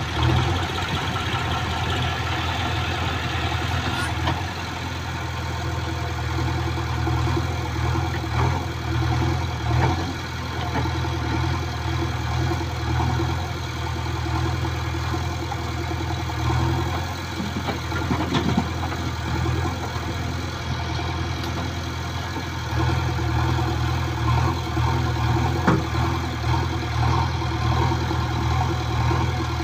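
Diesel engines of a JCB 3DX backhoe loader and a tractor running steadily as the backhoe digs and loads soil, with a few short knocks now and then.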